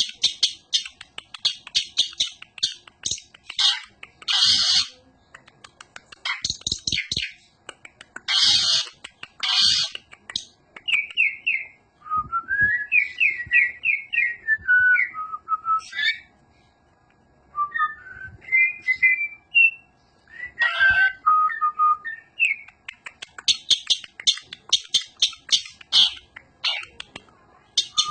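Javan pied starling (jalak suren) singing: bursts of harsh, rasping chatter, with a middle stretch of clear whistled notes sliding up and down in short runs.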